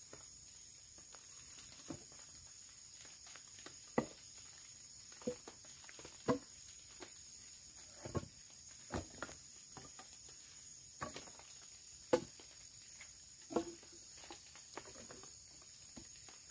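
Machete chopping and trimming wooden sticks into stakes: irregular sharp chops, one every second or so. A steady high-pitched insect drone runs behind them.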